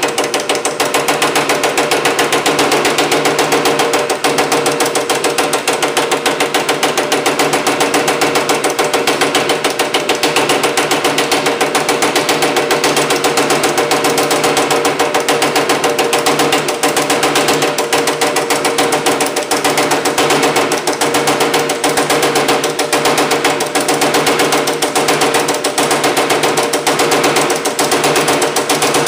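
Power hammer rapidly striking an aluminium panel between a linear stretch die below and a flat top die, a fast, even run of blows with a steady hum underneath. The blows stretch the metal to raise and lift the panel's shape.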